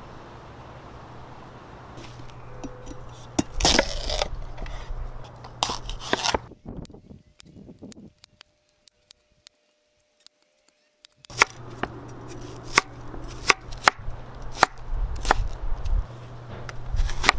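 Damascus-steel chef's knife cutting watermelon rind on a bamboo cutting board. A few loud cuts come first, then a pause of a few seconds. After that comes a quick, irregular run of sharp knocks as the blade dices the rind against the board.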